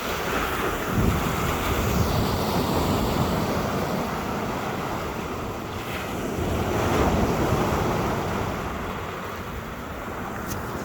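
Water rushing and splashing in uneven surges, with wind buffeting the microphone.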